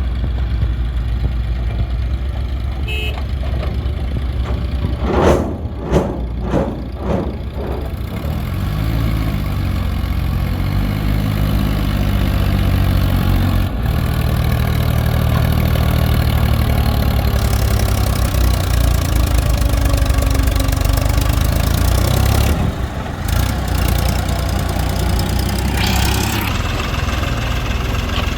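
Diesel engines of a backhoe loader and tractors running, the engine note rising and falling as it revs. A few short, loud knocks come close together about five to seven seconds in.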